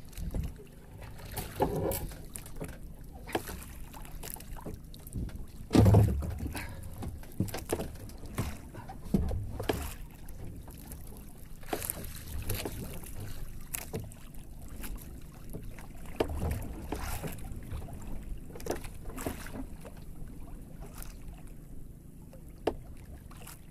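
Irregular knocks and thumps on a small outrigger fishing boat as a fisherman handles his line, over a steady wash of wind and sea; the heaviest thump comes about six seconds in.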